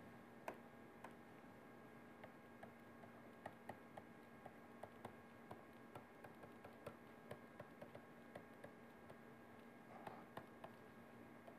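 Near silence, with faint irregular taps and clicks of a stylus on a pen tablet as handwriting is written, over a steady faint electrical hum.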